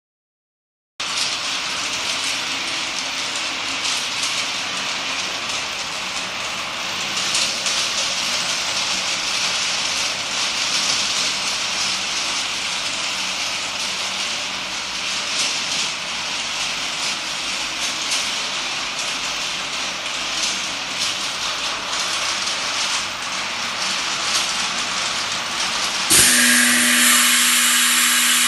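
Linear vial washing machine running: a steady hiss with a faint mechanical rattle. About 26 s in, a louder hiss starts together with a steady hum.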